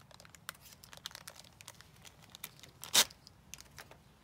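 Clear plastic parts bag crinkling as case pieces are pulled out of it, a run of small crackles with one louder crackle about three seconds in.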